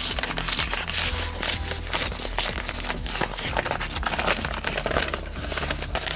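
Paper mailing envelope crinkling and rustling as it is handled, in quick irregular crackles throughout, over background music with a steady low bass.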